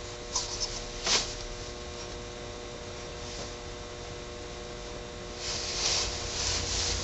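Steady electrical hum from the idle workshop, with two light knocks about a second in as the tool rest and stopped workpiece are handled, and soft handling rustle near the end.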